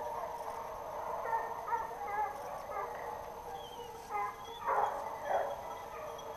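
Hunting dogs baying and barking in a continuous ragged chorus, with a few louder barks about four to five seconds in.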